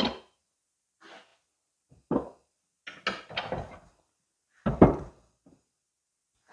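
A handful of separate knocks and clunks, about five, the loudest about five seconds in: hard parts and tools being handled and set down while a hydraulic cylinder is taken apart for new seals.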